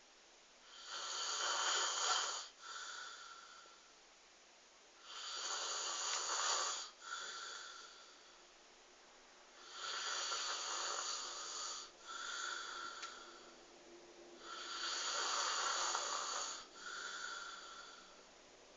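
A man snoring in his sleep: four snores about five seconds apart, each a loud rasping breath in followed by a shorter whistling breath out.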